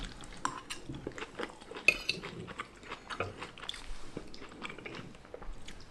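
Forks clicking and scraping on plates during a meal, a scatter of small irregular taps with a louder clink about two seconds in.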